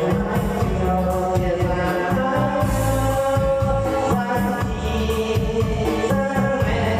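Music with a steady beat and bass line, with held melody notes.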